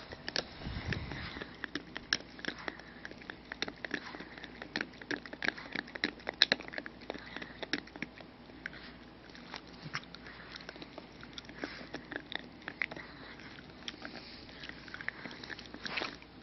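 Pug chewing on a bone close to the microphone: a continuous run of irregular sharp clicks of teeth gnawing on the bone.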